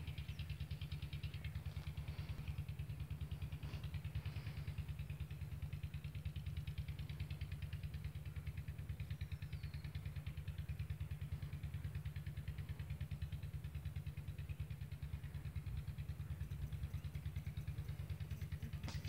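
A stationary engine running steadily with an even, rapid beat.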